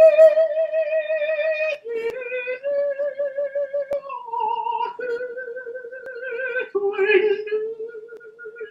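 Countertenor singing unaccompanied in a high voice: slow, long-held notes with vibrato, moving step by step between a few pitches.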